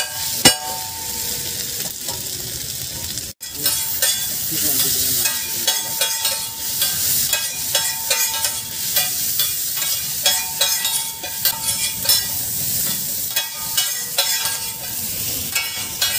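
Two spatulas chopping and stirring egg and chicken bhurji on a hot flat griddle: rapid, irregular clacking strikes against the griddle plate over steady sizzling.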